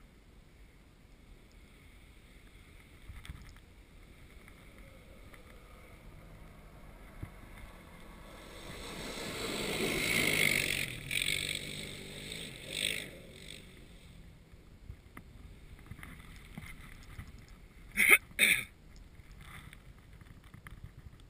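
An ATV engine approaching and driving past, growing louder to a peak about ten seconds in, then fading over a few seconds. Two short, sharp, loud bursts come close together near the end.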